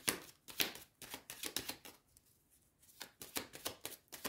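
A deck of cards being shuffled by hand: a quick run of short papery flicks and taps, pausing for about a second midway before going on.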